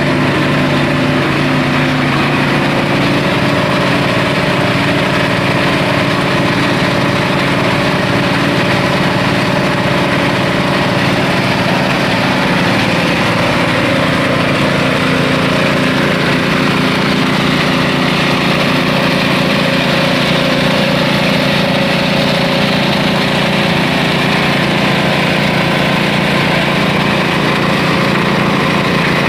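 Small engine of a simple well-drilling machine running steadily at a constant speed.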